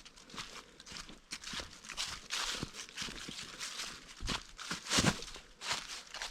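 Footsteps crunching through dry fallen leaves on a steep woodland trail, in an uneven series of crisp rustling steps.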